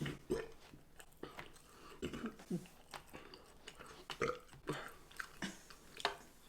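Close-miked eating of chicken tenders: scattered chewing and mouth clicks, with a short burp.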